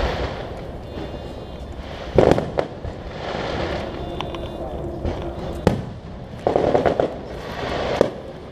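Aerial fireworks going off: sharp bangs about two seconds in, near the middle and again near the end, with crackling and hissing between them.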